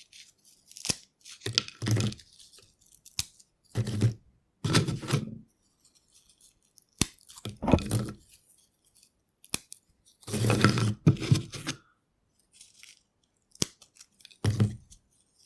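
Cheese crisps being snapped and crumbled by hand: a series of irregular sharp cracks and short crunches separated by pauses, with a longer crackling stretch about ten seconds in.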